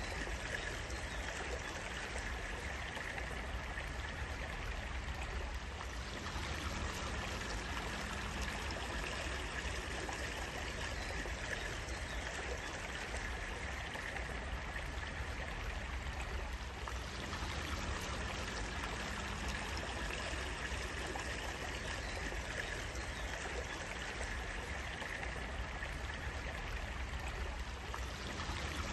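Stream water flowing and trickling steadily. A faint low hum comes and goes about every eleven seconds.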